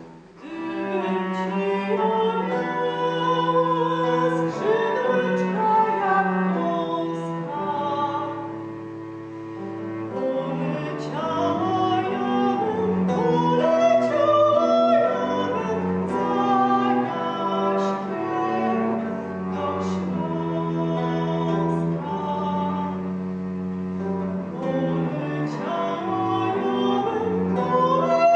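A woman singing with a bowed cello and a plucked lute accompanying her, the cello holding long low notes under the voice.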